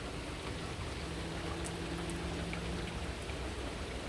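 Steady rain falling, an even hiss of drops. A faint low hum sits under it from about a second in until about three seconds in.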